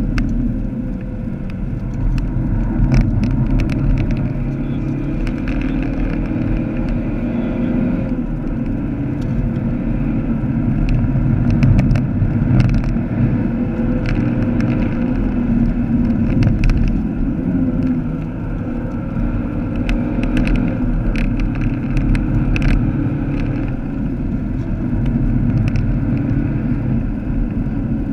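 Heard from inside the cabin, a Vauxhall Astra VXR's turbocharged 2.0-litre four-cylinder engine runs under load at track speed, its note rising and falling as it is driven, over steady tyre and road noise. Scattered sharp clicks and rattles come through now and then.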